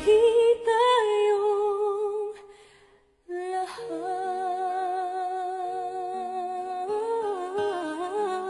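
A female singer holds a long note with vibrato over soft accompaniment. It fades out about two to three seconds in, and after a brief silence a new held note with vibrato starts over soft backing notes.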